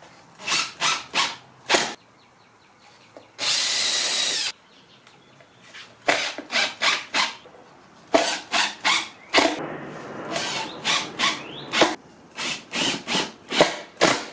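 Makita cordless impact driver driving screws into plywood in a series of short spurts, grouped three or four at a time, with one steady run of about a second early on and a longer, busier stretch with a rising whine a little past the middle.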